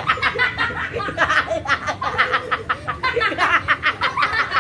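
A boy laughing hard in quick, repeated bursts with no let-up.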